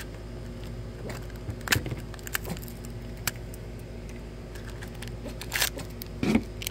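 Small plastic toy packaging being ripped open and handled: scattered crinkles and clicks, with a few sharper ones about two seconds in and near the end.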